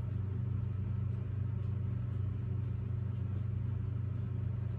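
Steady low hum that holds the same pitch and level throughout, with no other sound standing out.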